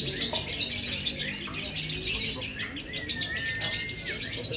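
Caged lovebirds chirping in a dense, continuous chatter of high trills, with a brief steady whistle-like note about three seconds in.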